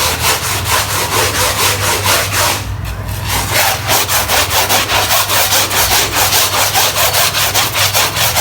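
Stiff brush scrubbing a wet, dirty carpet in fast back-and-forth strokes, about six a second, with a brief pause about three seconds in.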